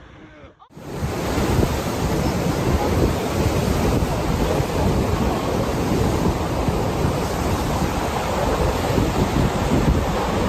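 Heavy ocean surf and wind: a dense, steady rushing noise with wind buffeting the microphone, starting suddenly under a second in.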